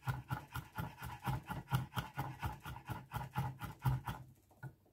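Kitchen knife rapidly chopping garlic on a wooden cutting board, a quick even run of about five or six taps a second that stops about four seconds in.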